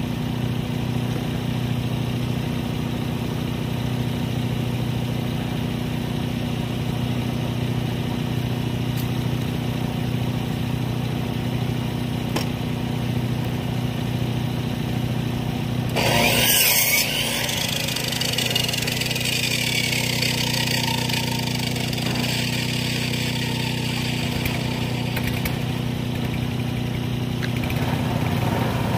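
Small gasoline engine of a Timbery M100 portable band sawmill running steadily. About halfway through, a louder rushing burst comes in, followed by a whine that slowly falls in pitch over several seconds while the engine keeps running.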